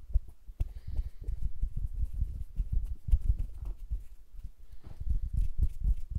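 ASMR hand sounds close to a stereo microphone: fingers fluttering and brushing around the capsules, making a fast, uneven run of soft low thumps, several a second, with faint light skin rustles on top.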